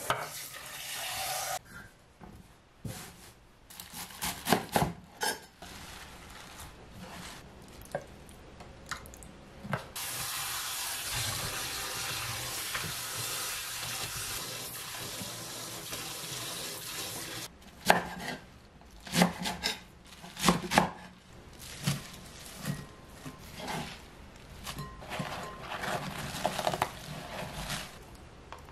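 Kitchen tap running into a stainless-steel sink, briefly at first and then steadily for about seven seconds while a bunch of chives is rinsed under it. Between and after the running water come scattered knocks and clatters of handling at the counter.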